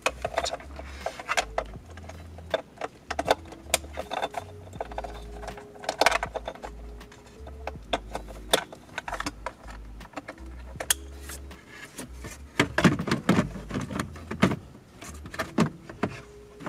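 A 2015 Honda Odyssey's plastic upper dash trim panel being handled and fitted into the dashboard, its wiring plugs being connected: a run of irregular plastic clicks, taps and rattles, busier near the end.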